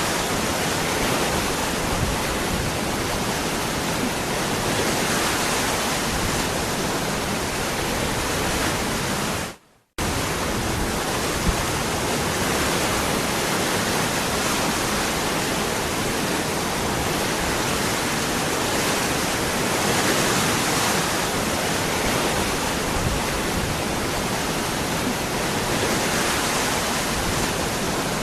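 Waterfall: steady rushing of falling water. About ten seconds in it fades out to a brief moment of silence and comes back abruptly.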